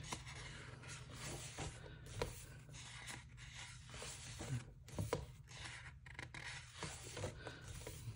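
Pages of a thick photobook being turned by hand, the paper sliding and rustling faintly with several soft swishes as the hand flattens each spread.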